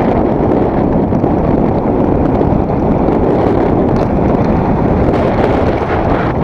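Loud, steady wind rush buffeting an action camera's microphone as a downhill mountain bike descends a dry dirt trail at speed, mixed with the tyres running over the dirt.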